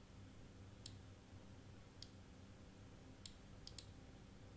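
Faint computer mouse clicks, five in all, spaced a second or so apart with two in quick succession near the end, over quiet room tone.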